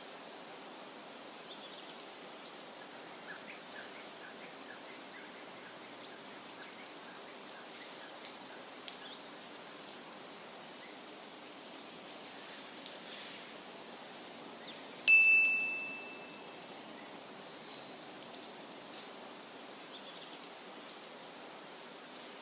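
Faint outdoor ambience with scattered faint bird chirps, broken about fifteen seconds in by a single sharp ding that rings on one high tone and fades within about a second.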